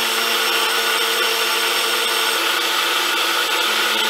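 NutriBullet personal blender running at full speed with a steady motor whine, blending a cupful of liquid ingredients (cream, condensed milk, whiskey).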